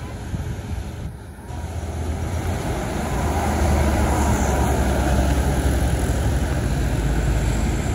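Bus engine rumbling with road noise, growing louder as it approaches and loudest over the last few seconds.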